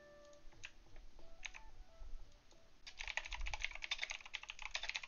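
Typing on a computer keyboard: a few scattered key clicks, then fast, continuous typing from about three seconds in.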